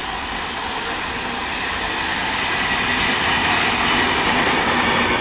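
A train running past on a nearby track: steady rumble and rattle of wheels on rail, growing slightly louder and sharper toward the end.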